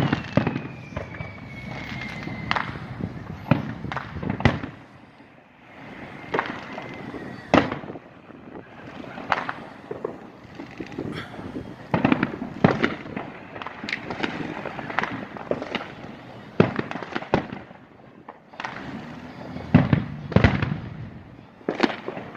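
Fireworks display: many irregular bangs and crackles, with a falling whistle near the start.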